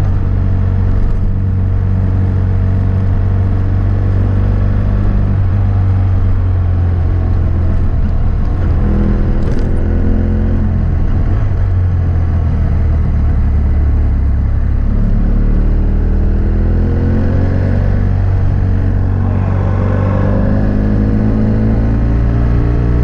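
BMW F800S 798 cc parallel-twin engine running through a GPR Furore Nero exhaust with its dB-killer fitted, heard under way as the motorcycle is ridden. The engine note shifts up and down with throttle and gear changes, and the revs climb about nine seconds in and again about twenty seconds in.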